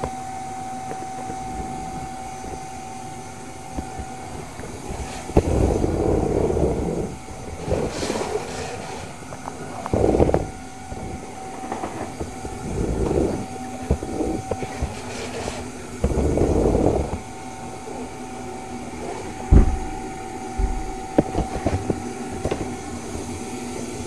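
Vacuum cleaner running with a steady whine, broken every couple of seconds by louder rushes of suction noise lasting about a second, and a few sharp knocks.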